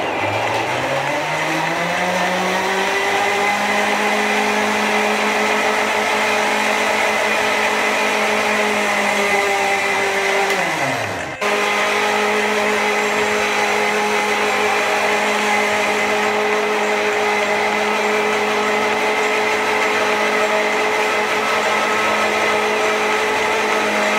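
Moulinex electric blender motor switched on and rising in pitch as it spins up over about two seconds, then running at a steady high speed. About ten seconds in it winds down briefly and is switched straight back on, running steadily again.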